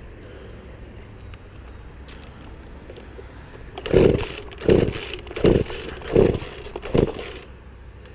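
Poulan Pro chainsaw being pull-started: about four seconds in come five quick yanks of the starter cord, roughly one every three-quarters of a second. Each pull turns the engine over with a short rattling burst, but it does not catch.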